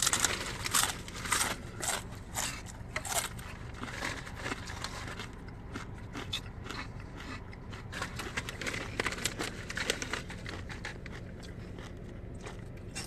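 Clear plastic takeout containers and a plastic bag crinkling and crackling as hands pick through food. The crackles come thick in the first few seconds, then turn lighter and more scattered.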